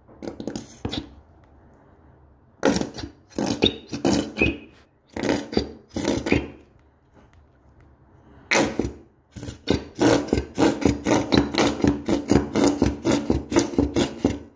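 Plastic squeeze bottle of sauce being squeezed in bursts, sputtering as sauce and air spurt from the nozzle. From about eight seconds in comes a run of quick spurts, several a second.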